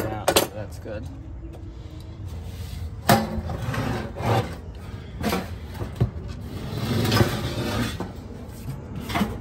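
Knocks, clanks and scrapes of a galvanized sheet-metal blower housing being handled and shifted about, several separate hits spread through, over a steady low hum.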